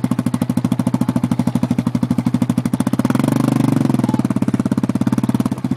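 Engine of the vehicle towing a sledge on a rope, running with a fast, even chugging pulse of about a dozen beats a second. About three seconds in it revs up briefly to a louder, smoother note, then drops back to the chugging.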